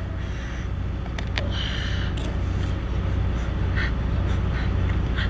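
Close-up eating sounds as cooked lobster claw meat is pulled out and eaten: a few short clicks and mouth noises. Underneath is a steady low hum.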